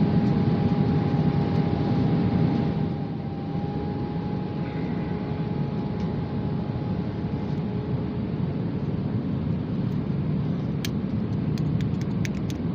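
Steady drone of an airliner cabin in flight, a low rumble with a faint steady whine over it. The level drops slightly about three seconds in, and a few faint clicks come near the end.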